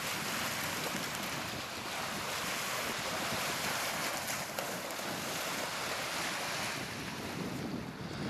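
Lake waves washing onto a sandy beach in a steady surf that swells and eases, with wind buffeting the microphone.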